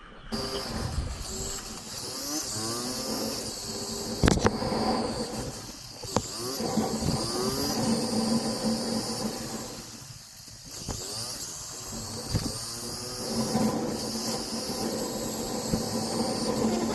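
Motorcycle engine pulling through the gears while riding, its pitch climbing and dropping back several times, over a steady rush of wind and road noise. Two sharp knocks come about four and six seconds in.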